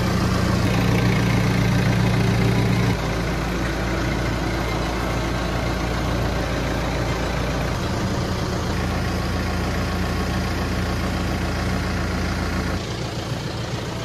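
Tractor engine idling steadily, its low hum shifting abruptly a few times, while the front loader holds a milk-fever cow up in a hip lifter.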